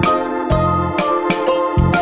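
Background music: a keyboard melody over a bass line with a steady beat of about two strokes a second.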